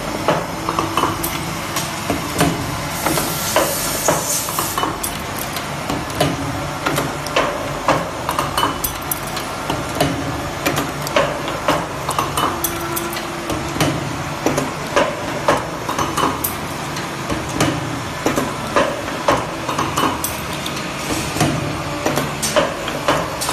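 Automatic cotter pin making machine (hydraulic wire bending machine) running: a steady hum under frequent, irregular metallic clanks and clicks as it feeds, straightens and bends steel wire. A short hiss comes about three seconds in.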